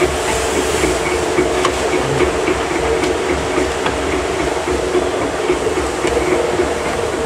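A machine running steadily, with a constant hum and a regular light clicking about three times a second.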